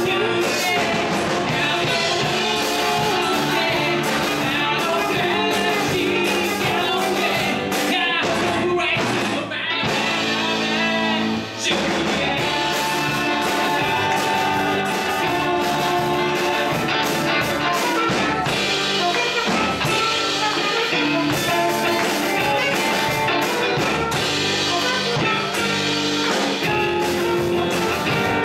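Live rock band playing a song: a woman singing over a drum kit and electric guitars.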